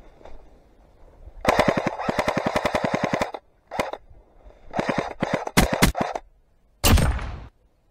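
Airsoft rifle firing on full auto: a long burst of about twelve shots a second starting about a second and a half in, then several shorter bursts. A single loud thump comes near the end.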